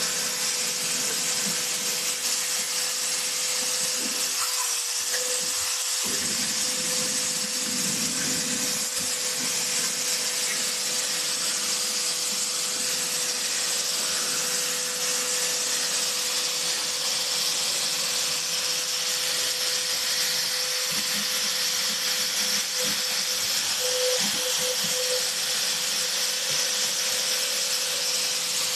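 Air-powered grinder running steadily with a high hiss and a constant whine, grinding rust off the metal.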